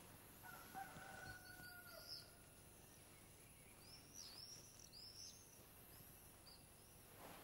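Near silence, with faint ambient birds chirping a few times and a faint rooster crow held for about two seconds near the start.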